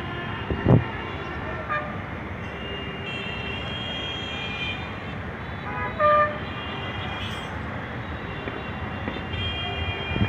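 Busy town street traffic heard from high above: a steady hum of vehicles with horns tooting, one short loud honk about six seconds in and higher, thinner horn tones around four seconds in and again near the end.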